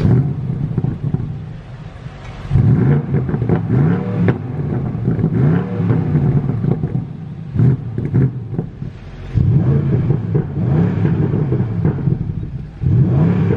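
BMW M850i's 4.4-litre twin-turbo V8 starting with a flare of revs, then idling between blips of the throttle. It is revved in short rises and falls about 2.5 s and 4 s in and near 8 s, with a longer rev from about 9.5 to 12 s and another near the end.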